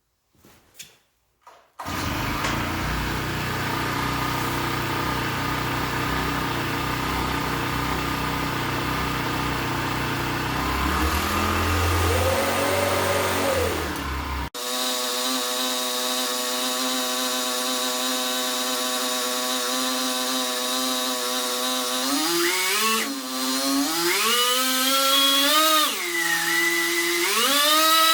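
Motor-driven machinery running: a steady mechanical whir for about twelve seconds, then, after a sudden cut, a motor whine whose pitch rises and falls several times near the end.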